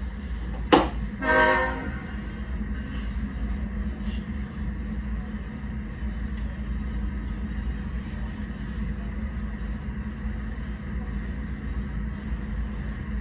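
A sharp click, then a short toot of a diesel locomotive's horn a little over a second in, over a steady low rumble.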